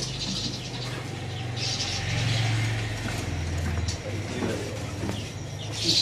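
Background sound of a shop full of caged birds: a steady low hum that grows louder for a couple of seconds in the middle, with faint chirping and rustling from the birds.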